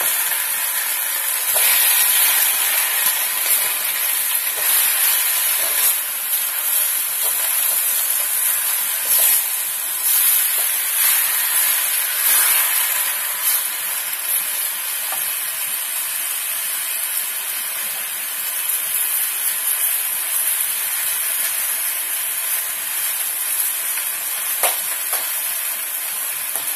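Vegetables and bean curd sizzling steadily in a hot wok over a gas flame, with a metal spatula stirring and scraping through them and an occasional sharp knock against the pan.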